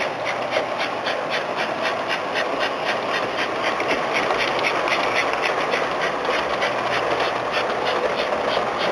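S gauge model steam locomotive and freight train running on the track: a steady mechanical rumble of motor and wheels, with an even clicking at about five a second.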